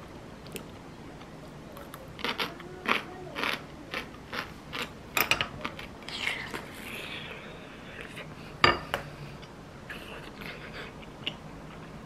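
Crisp crunching of kimchi being chewed, a run of short crunches at about two a second, then a single sharp utensil clink about two thirds of the way through.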